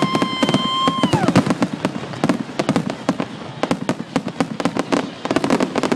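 Dense barrage of fireworks: rapid overlapping bangs and crackles. A held whistling tone from a firework sounds through the first second and falls away in pitch.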